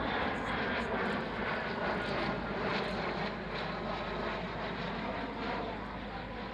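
Fixed-wing aircraft engine noise, a steady rushing sound that fades slightly toward the end.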